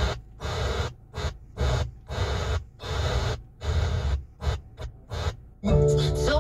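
Car radio being tuned through FM stations by hand: short bursts of broadcast sound and hiss, each cut off by a brief silence as the frequency steps. Near the end a station holds and music plays.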